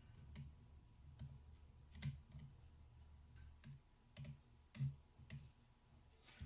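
About ten faint, irregular light clicks and taps of small metal parts being handled: a padlock's pin chamber being emptied of its last spring. The two loudest come about two and five seconds in.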